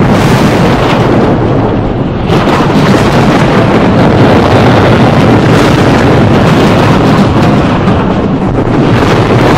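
Thunder from a storm, loud and continuous, easing briefly about two seconds in and again near the end.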